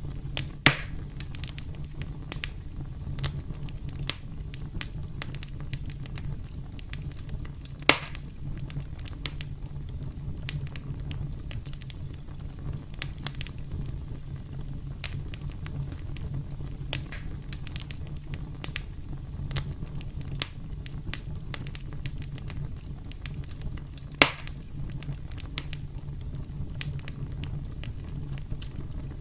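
Campfire crackling over a steady low rumble of flames, with scattered small snaps and three loud pops, about a second in, at eight seconds and near the end.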